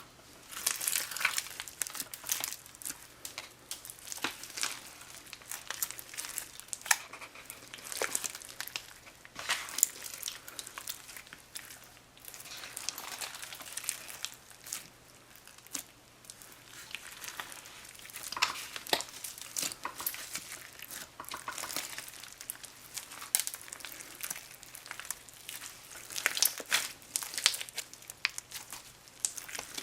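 Dried-up, crunchy old slime being squeezed and worked by hand, giving a continuous run of irregular crackles, clicks and crinkles.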